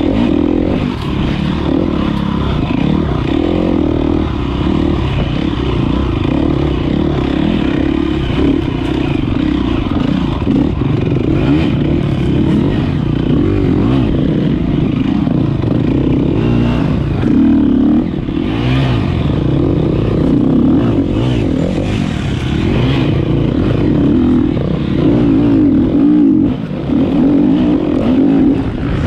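2013 KTM 250 XC-F single-cylinder four-stroke dirt bike engine running hard, its pitch rising and falling with the throttle.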